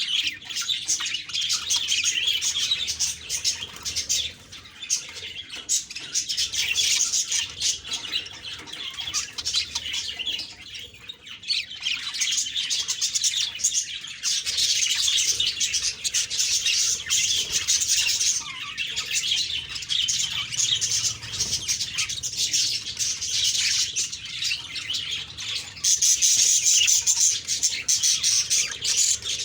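Budgerigars chirping and warbling in a dense, continuous chatter of quick high-pitched notes. It thins out briefly twice and is louder for the last few seconds.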